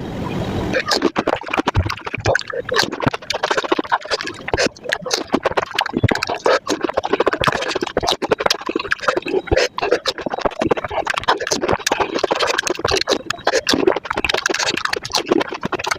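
Close-miked eating of panipuri, sped up five times: crisp puri shells crunching and wet mouth sounds from the filling and spicy water, packed into a rapid, continuous stream of crackles and smacks.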